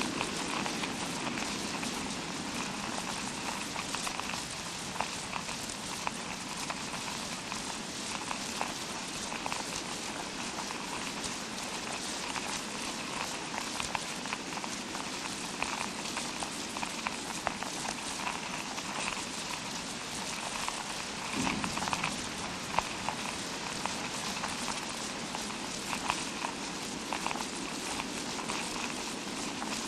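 Fake rain sound effect: a steady, dense patter of tiny crackling ticks imitating rainfall, with no single drop standing out.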